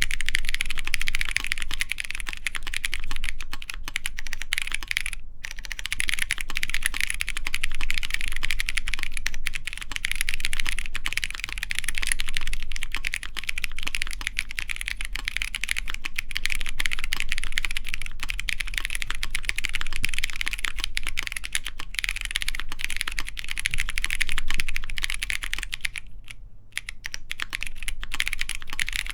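Fast, continuous typing on a mechanical keyboard with stock Kailh Polia tactile switches, GMK Pixel keycaps and a full aluminum plate, dampened with plate and PCB foam. The keystrokes run together in a dense clatter, with a brief pause about five seconds in and a longer one near the end.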